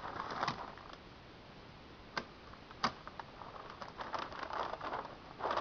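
Plastic sheeting being handled and spread, rustling and crinkling, with two sharp clicks about two and three seconds in and smaller crackles between.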